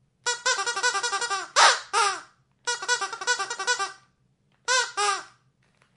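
Squeaky dog toy squeezed in quick runs. A run of rapid squeaks, about eight a second, ends in two longer squeaks, the first the loudest; a second rapid run follows, then two single squeaks near the end.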